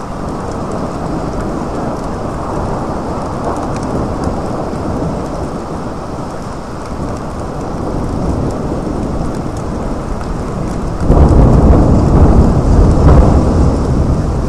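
Thunderstorm: thunder rumbling under steady rain, then a much louder, deeper roll of thunder breaking in near the end.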